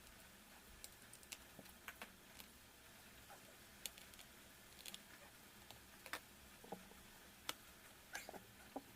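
Light, irregular clicks and taps from small hard parts being handled while a laptop is worked on, about fifteen in all with no steady rhythm, over a faint steady hiss.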